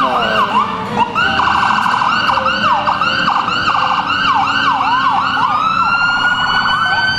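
Emergency-vehicle sirens sounding together, several warbling up and down in quick overlapping sweeps; near the end one settles into a long rising wail.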